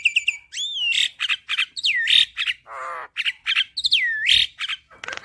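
Javan myna singing a loud, varied song: quick runs of clicks and chips, looping whistles that sweep down and back up, and a harsh rasping note about halfway through.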